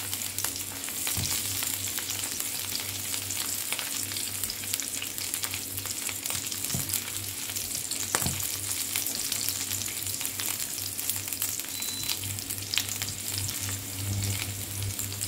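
Minced garlic sizzling and crackling in hot oil in a nonstick frying pan as it is sautéed, stirred with a wooden spatula that scrapes and now and then knocks on the pan. A low steady hum runs underneath.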